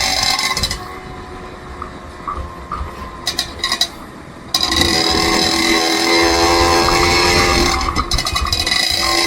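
Road vehicle noise: a steady running drone with several held tones. It drops away sharply about a second in, a few clicks sound near the middle, and it comes back abruptly about four and a half seconds in.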